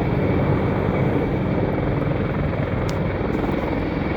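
Helicopter coming in to land: its rotor makes a rapid, steady blade chop over the whine of its turbine engine.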